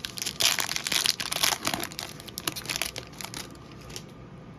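Crinkling and rustling of a trading card pack's wrapper being handled and opened, dying away about three and a half seconds in.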